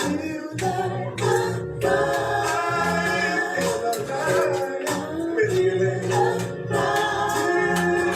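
Background music with singing voices over a steady beat.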